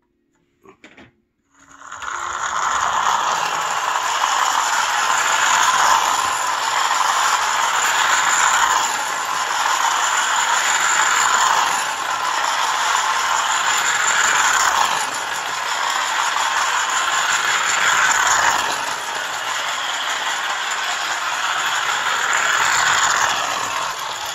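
Clockwork spring motor of a mid-1800s George Brown wind-up tin toy train running as the toy travels across a concrete floor: a continuous metallic rattle of gears and wheels that swells and eases every few seconds. Two light clicks come about a second in, just before it starts.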